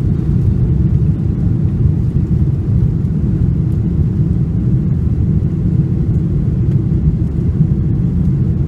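Steady low rumble of airliner cabin noise aboard a Boeing 747-400: engine and airflow noise heard from inside the economy cabin, even and unchanging.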